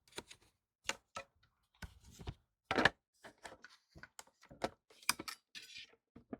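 Irregular knocks, clicks and clatter of equipment being handled and moved about on a workbench, about a dozen sharp hits with the loudest near the middle.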